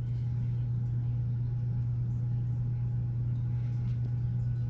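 Steady low electrical hum from a household appliance, one unchanging droning tone with no rise or fall.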